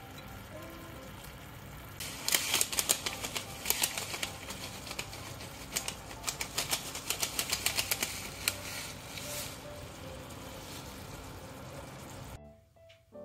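Thick sauce simmering in a frying pan, its bubbles popping in quick, irregular clicks for several seconds from about two seconds in, over faint background music.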